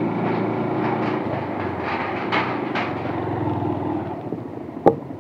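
Motorcycle running at low speed over the steel deck plates of a suspension bridge, the plates rattling and clanking under the wheels. The rattle fades about four seconds in as the bike rolls off the bridge, with one sharp click near the end.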